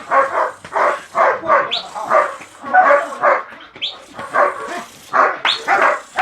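Guard dog barking in a rapid, unbroken series, about three barks a second.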